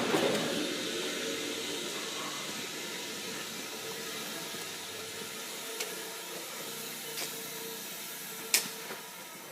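Air hissing from a Peterbilt 389 semi truck's air system, dying away over the first second or two into a steady low hiss with a faint hum. A few light clicks come later, the sharpest near the end.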